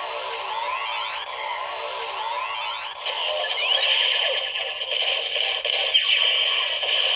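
Kamen Rider Zero-One DX Hiden Zero-One Driver toy with the Rising Hopper Progrise Key, playing its electronic finishing-attack sound effect through its small built-in speaker. A run of rising synth sweeps and zaps gives way about three seconds in to a steady high electronic whine, thin and without bass.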